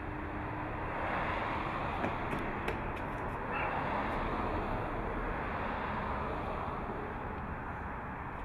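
Steady outdoor street ambience: an even rush of noise, with a couple of faint ticks about two to three seconds in.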